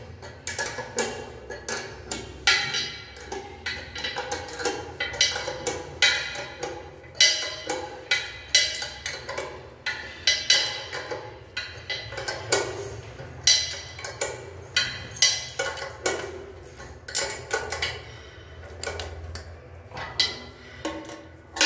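Metal spanner clinking and knocking as a nut on the underside of a ceramic washbasin is tightened: irregular sharp clinks, about one or two a second, each with a short ring.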